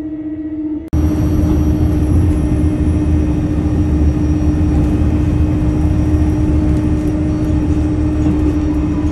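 Steady rumble of a moving vehicle heard from inside its cabin, with a constant hum over it, growing much louder about a second in.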